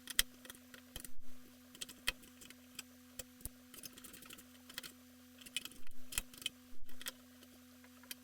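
Irregular small clicks, taps and light metallic clatter of hands handling computer parts and tools during a CPU swap in a Mac Pro, played back sped up, over a steady electrical hum.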